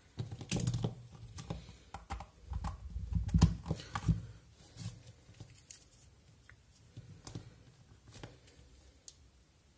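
Small hand-handling clicks and knocks as a USB cable is plugged into a power bank's second port and the cables and a small camera are moved about on a table; the clicks come thickest in the first half, then thin out.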